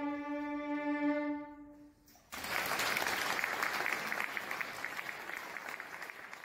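A violin holds a long final note that fades out, and after a short pause an audience starts applauding. The applause goes on and slowly thins out.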